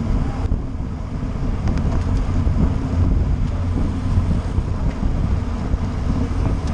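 Wind buffeting the microphone of a camera on a moving racing bicycle in a pack of road cyclists: a steady low rumble, with a few faint ticks.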